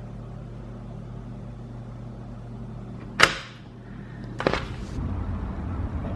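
Two sharp clicks or knocks about a second and a half apart over a steady low hum; after the second, the hum gives way to a low rumble.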